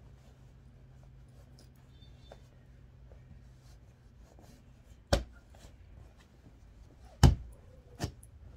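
Soft rustling of cloth as a pillow is worked into a pillowcase, then three loud, sudden thumps: one about five seconds in and two close together near the end.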